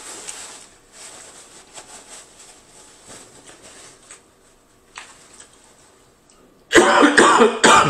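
Soft rustling of a paper napkin being handled at the face, then near the end a loud coughing fit: three harsh coughs in quick succession.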